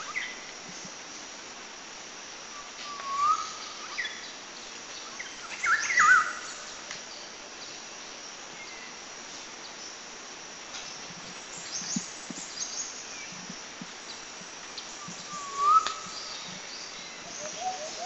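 Wild birds calling now and then over a steady outdoor hiss: a short rising whistle about three seconds in and again near the end, a quick cluster of chirps around six seconds, and a few high chirps around twelve seconds.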